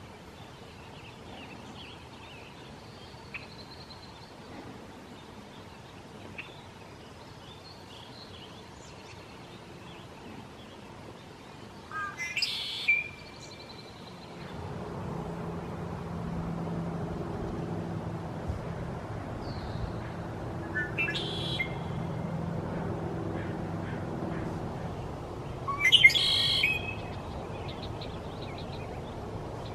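Male red-winged blackbirds singing: three loud conk-la-ree songs, each about a second long and rising into a trill, with soft chirps and calls between them. A low steady hum runs underneath in the second half.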